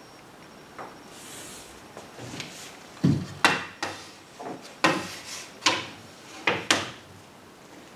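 Large wooden blackboard ruler knocking against a chalkboard as it is set in place, with chalk scraping along its edge to draw straight lines. Faint scratching at first, then a series of sharp knocks from about three seconds in until near the end.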